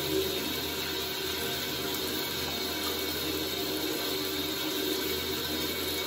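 Hands lathered with soap rubbing together over a bathroom sink, over a steady hiss in a small tiled room.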